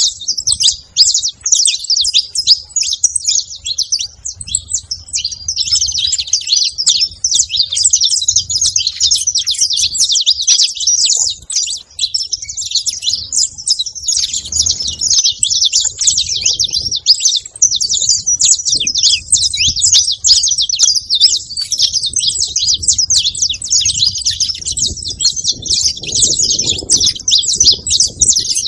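Saffron finch chirping and singing in a rapid, unbroken stream of short high notes.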